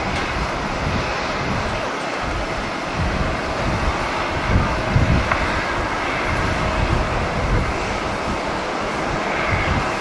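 Turboprop engines of a Bombardier Dash 8 running as the aircraft rolls past at ground speed, a steady engine noise with a faint constant tone. Strong wind buffets the microphone in gusts, with the heaviest rumbles about halfway through.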